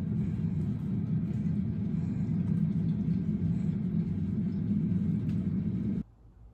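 A steady low rumble that starts suddenly and cuts off about six seconds in.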